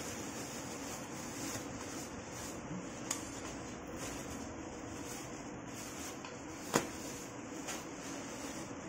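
Steady room noise with a faint hum, broken by two short sharp clicks, the louder one nearly seven seconds in.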